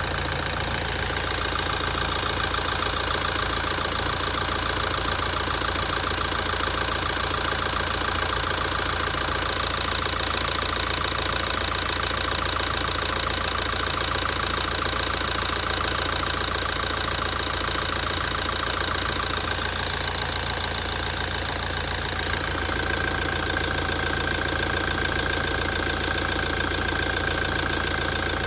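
A 2017 Toyota's engine idling steadily, with a steady high-pitched whine over the running sound that changes pitch slightly about two-thirds of the way through. This is the engine noise the owner noticed after a major service.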